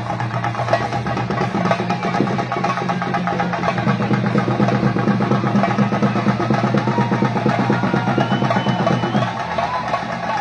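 Chenda drums beaten in a fast, dense rhythm as the percussion for a Theyyam, with a wavering melodic line joining about seven seconds in.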